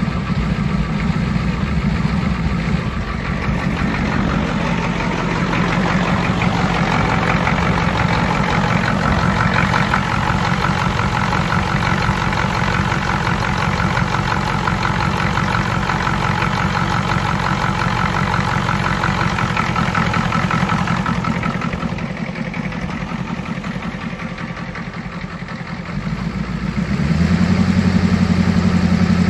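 Ford 7.3 IDI V8 diesel engine idling with a steady diesel clatter. The owner suspects one bad fuel injector of causing its heavy exhaust smoke. It gets louder, with a stronger low exhaust note, near the end.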